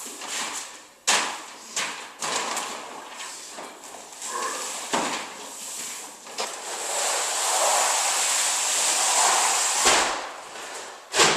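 Knocks, clatter and scraping from moving a heavy roll of sheet vinyl flooring on a small roller. There is a sharp knock about a second in, another just before the end, and a longer stretch of rustling and scraping in the second half.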